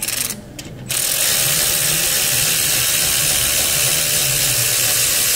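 Power ratchet spinning out an alternator mounting bolt: a couple of short blips, then a steady run from about a second in.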